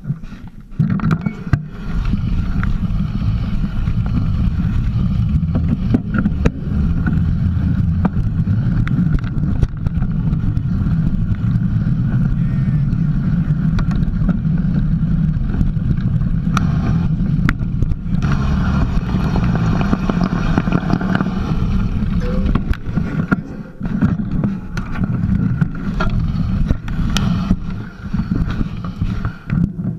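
Mountain bike riding over a rough dirt trail, heard from a camera mounted by the front wheel: loud, steady rumble of wind and tyre noise, with many clicks and knocks as the bike jolts over bumps.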